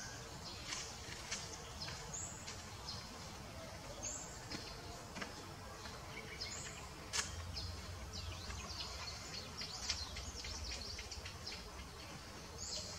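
Outdoor ambience with short, high bird chirps every second or two and scattered small clicks. A low rumble comes in about seven seconds in and fades about four seconds later.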